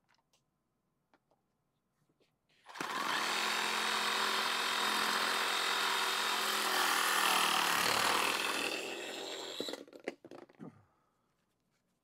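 A power tool motor starts about three seconds in and runs loud and steady for roughly seven seconds, dipping in pitch briefly as it takes load. It then stops, followed by a few short knocks.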